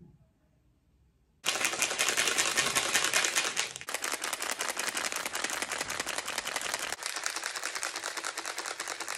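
A fast, even rattle of dry clicks that starts about a second and a half in and keeps going for about eight seconds.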